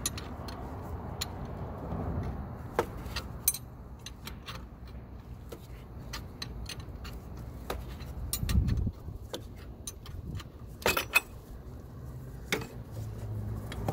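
Irregular metallic clinks and clicks of a wrench turning the forcing screw of a gear puller, drawing a pressed-on camshaft pulley off its shaft.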